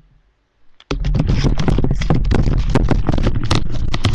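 Microphone handling noise from a headset being put on: a dense run of rustling, scraping and knocking right against the mic, starting suddenly about a second in after near silence.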